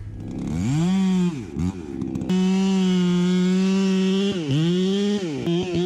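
Chainsaw engine revved up to high speed and held there at full throttle, with its pitch dropping sharply and recovering a few times as the throttle is let off.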